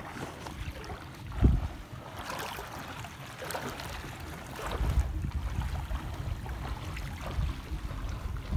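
Wind rumbling on the microphone over shallow seawater lapping and trickling among rocks, with a brief low thump about a second and a half in.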